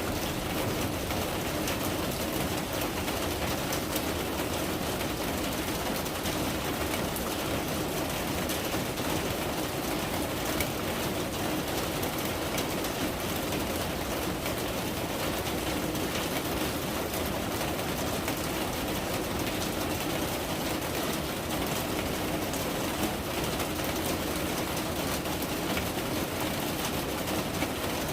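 Steady rain falling: an even hiss thick with fine drop ticks.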